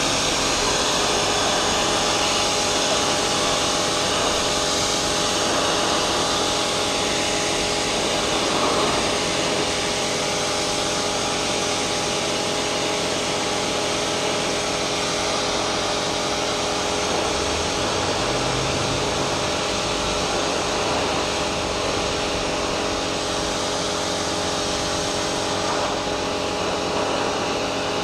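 Kärcher K5 Premium Home electric pressure washer running steadily, its motor and pump holding several steady tones under the hiss of the high-pressure water jet spraying the metal railing.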